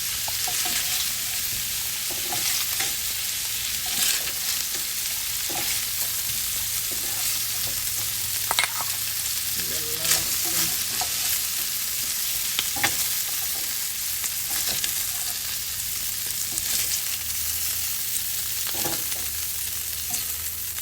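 Shrimp sizzling in hot olive oil and butter in a frying pan, a steady hiss, with a few sharp clicks of a utensil against the pan as the shrimp are lifted out.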